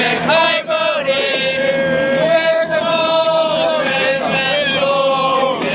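A group of Arsenal supporters, mostly men's voices, singing a football chant together in long held notes.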